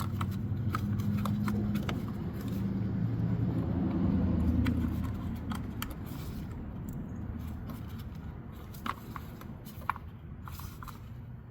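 A motor vehicle's engine rumble swelling and then fading away, as a vehicle passes by. A few light clicks near the end, of plastic connectors being handled.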